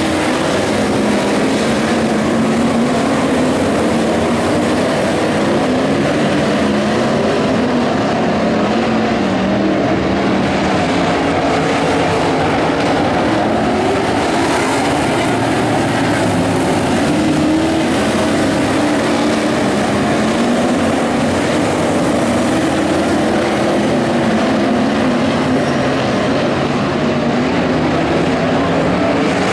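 A pack of IMCA modified dirt-track race cars' V8 engines running at racing speed, several overlapping engine notes whose pitch keeps rising and falling as the cars go around the oval.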